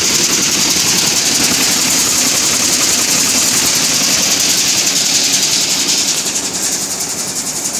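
Nut chopping machine (LGC-150) running, with its rolling-knife chopper and vibrating grading sieves making a steady, dense mechanical rattle and hiss as chopped peanuts pour through. It gets somewhat quieter about six seconds in.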